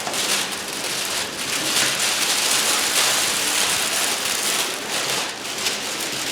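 Close-up crinkling and rustling of a thin sheet being handled over the diamond-painting canvas: a dense, steady crackle that eases off near the end.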